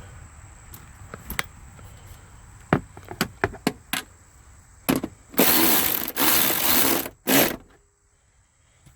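Tightening the seatbelt anchor bolt: a few scattered clicks, then two loud bursts of a power tool running about two seconds after the clicks stop, and a short third burst just after.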